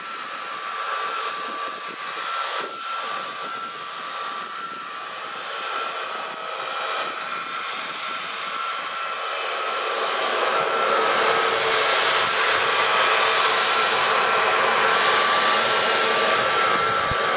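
Turbine whine from an Airbus A320neo on the stand: steady high tones over a rushing hiss that swells louder about ten seconds in.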